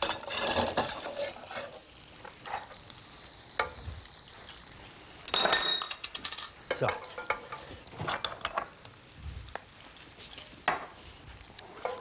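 Frying pan sizzling steadily, with a wooden spatula scraping and knocking several times as fried apple and onion is lifted out onto plates. The loudest clatter comes about five and a half seconds in.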